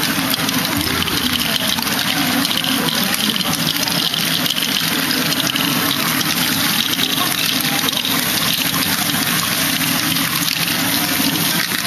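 Many small plastic balls rolling and rattling steadily through the LEGO Technic Great Ball Contraption modules, a continuous dense clatter, with a steady low hum beneath.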